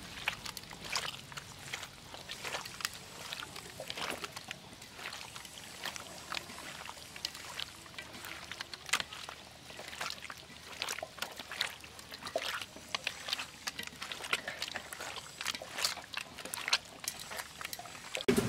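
Hands kneading and squeezing raw field-mouse meat with chili paste and sauce in a stainless steel bowl: wet squelches and smacks, coming irregularly several times a second.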